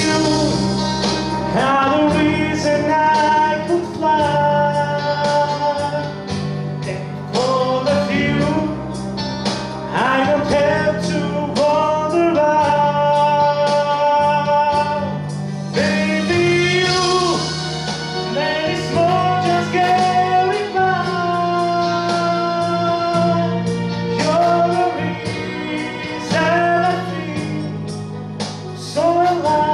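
A man singing a song in English into a handheld microphone over backing music with sustained low chords and a steady beat.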